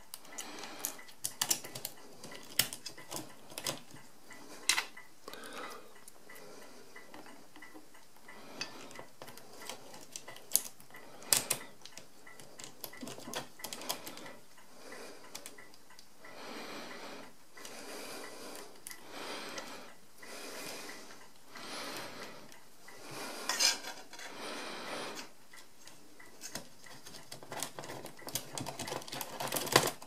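Small metal parts of an Odhner 239 pinwheel calculator clicking and clinking as fingers work wheels onto its shaft. Irregular sharp clicks come between stretches of softer rubbing and handling noise.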